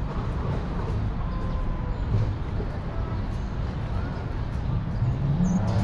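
City street ambience: a steady rumble of traffic with passers-by talking.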